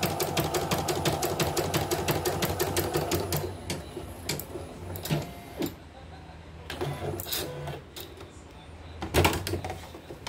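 CNY portable embroidery machine stitching at an even pace of about seven stitches a second, its speed steady after its motor and power supply were replaced, then stopping about three and a half seconds in. Scattered mechanical clicks follow, with a louder knock near the end.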